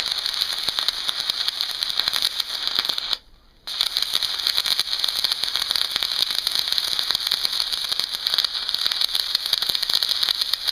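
Stick-welding arc run off three 12-volt car batteries in series, crackling steadily as a large, roughly 3.2 mm electrode burns. The arc goes out for a moment about three seconds in and is struck again.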